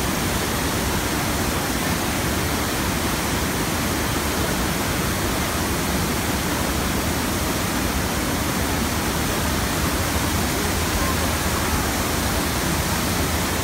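Surf simulator's steady rush of water, pumped in a thick sheet over its padded ride surface.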